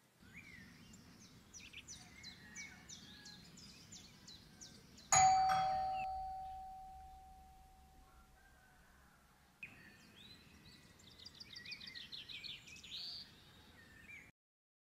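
Birds chirping in quick, falling high notes. About five seconds in, a single loud bell-like ding rings out and fades away over about three seconds. Birds chirp again in a rapid run from about ten seconds in, and the sound cuts off abruptly near the end.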